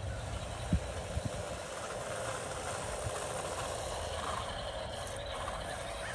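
Electric drive motor and gearbox of a 1/12-scale RC crawler tractor (a diecast Dongfanghong 54 converted to electric) running steadily as it drives across grass, with two low thumps about a second in.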